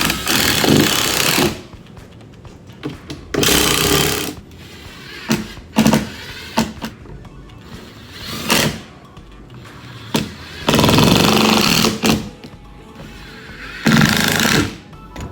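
Power driver running screws into a plywood boat deck to fasten a latch, in about five short bursts with pauses between.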